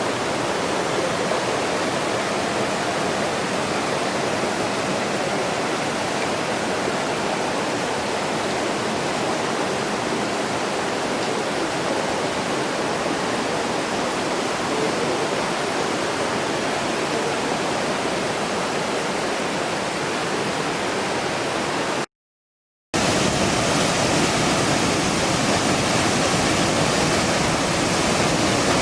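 Steady rush of fast-flowing mountain river water tumbling over rocks. It breaks off for under a second late on, then resumes slightly louder.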